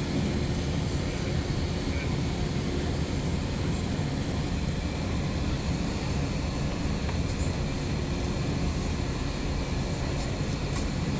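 Steady low rumble of an airliner's jet engines and cabin noise heard from inside the cabin while the plane taxis, engines at low taxi power with no spool-up.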